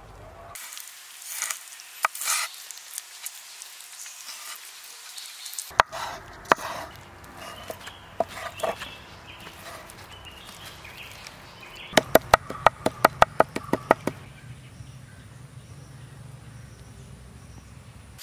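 Cleaver chopping raw mutton on a wooden chopping board: scattered knocks and rustling, then a fast run of about ten sharp chops over two seconds, about two-thirds of the way through.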